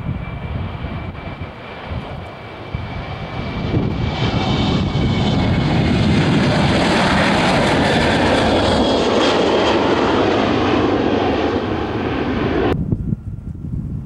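Boeing 737-800's CFM56-7B turbofan engines at takeoff thrust during the takeoff roll and liftoff. The jet noise swells over the first few seconds, holds loud through the middle, then cuts off suddenly near the end, leaving only quieter background noise.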